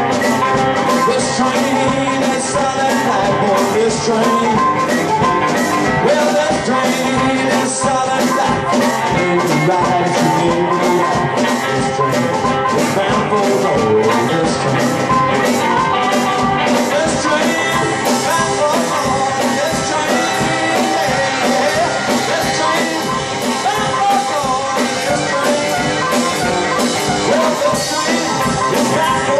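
Live blues trio playing a song on electric guitar, harmonica and drum kit, with a steady drum beat. The harmonica plays lead with bending notes.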